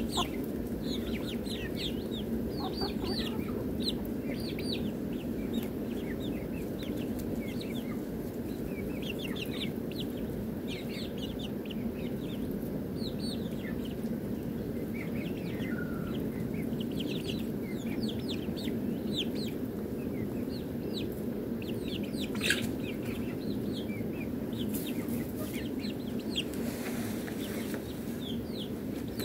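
Backyard chickens, hens and a rooster, clucking and calling while they forage, with many short high chirps scattered throughout over a steady low background noise. A single sharp click sounds about 22 seconds in.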